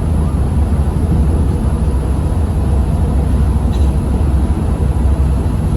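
Steady low rumble of a passenger ferry under way, its engines droning without change.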